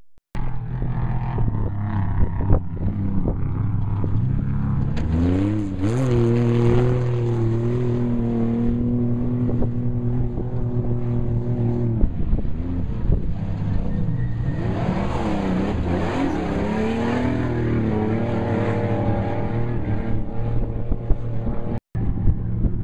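Off-road race vehicle engines running hard at speed. The engine pitch climbs about five seconds in and holds, drops around halfway, then rises and falls again. The sound cuts out for an instant near the end.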